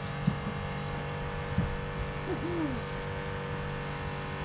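A steady engine hum made of several even tones, with a couple of faint knocks and a brief faint voice in the background.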